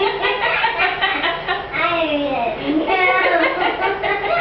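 A young child's voice babbling in sing-song, its pitch sliding up and down, with no clear words.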